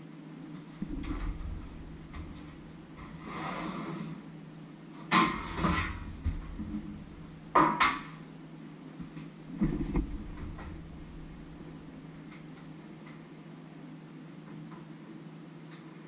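A metal baking tray and the oven door being handled: a scrape, then three loud metallic clanks a couple of seconds apart, over a steady low hum.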